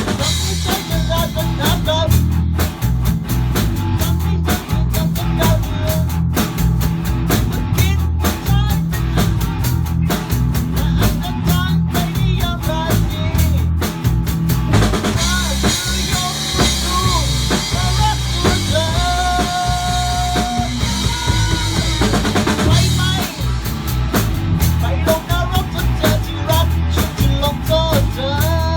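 A band playing live: a drum kit keeping a steady beat under bass and a melodic lead. Around the middle the beat thins to cymbals and a long held note, then the full beat comes back.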